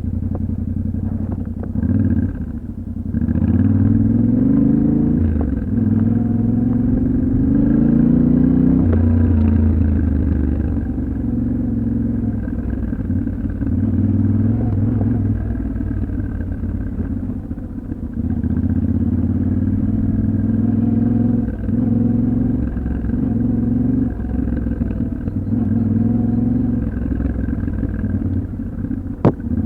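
Yamaha Ténéré 700's 689 cc parallel-twin engine under way off road, its revs climbing twice in the first ten seconds, then running at fairly steady revs with small throttle changes. A single sharp knock near the end.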